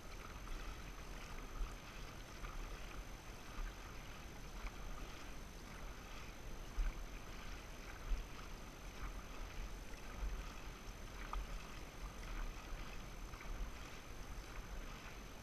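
Dragon boat paddles splashing and water rushing past the hull as the crew paddles, with wind rumbling on the microphone.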